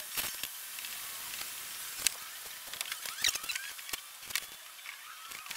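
Irregular clicks, taps and clatter of metal bar clamps being set and squeezed down on a wood-glue glue-up of plywood panels, with a couple of short squeaks about three seconds in.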